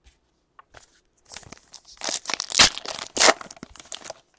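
Foil wrapper of a Panini Chronicles baseball card pack being torn open and crinkled by hand: a run of crackling rips starting about a second in, loudest in the middle.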